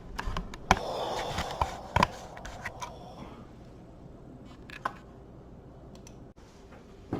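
Hands working at oven wiring: a few sharp clicks with rustling in the first three seconds, then only scattered faint clicks.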